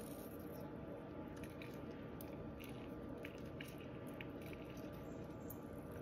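Faint wet squishing of a lemon wedge squeezed between the fingers, with scattered small clicks.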